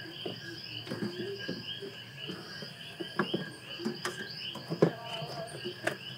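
Short, irregular plastic clicks and knocks as the coolant reservoir's lid and overflow hose are pushed into place by hand, over a steady rhythmic chirping of insects.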